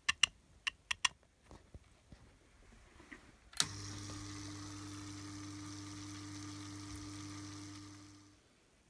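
A few sharp clicks, then a small submersible aquarium filter pump starts suddenly with a steady mains hum while water sprays down as rain in the terrarium, an even hiss. The flow is set a little too high. It runs about five seconds and then fades out.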